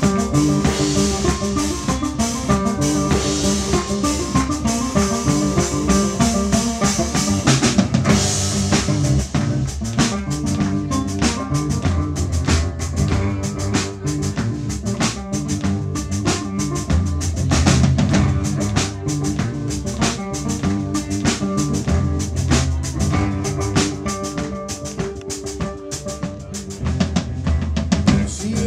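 A cello and a drum kit playing an instrumental passage live together. A steady drum groove runs under the cello's low notes, with cymbal crashes near the start and again about eight seconds in.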